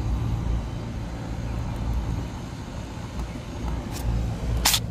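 Low, fluctuating outdoor rumble, with two sharp clicks near the end, the second louder.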